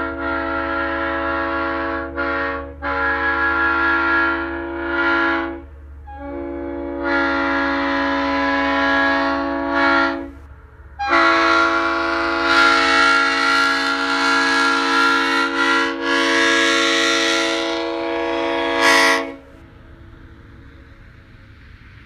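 Leslie RSL3L-R three-chime locomotive air horn sounding its steady chord in repeated blasts: one ending about two seconds in, a short toot, two blasts of a few seconds each, then a long blast of about eight seconds that stops sharply.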